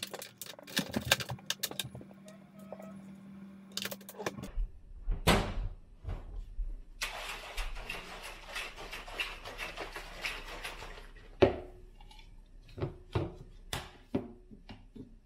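Plastic BlenderBottle shaker being shaken hard for about four seconds, its whisk ball rattling inside as powder is mixed into water. Before it come light clicks and rattles of the scoop and bottle; after it, one loud snap and a few clicks as the lid is handled.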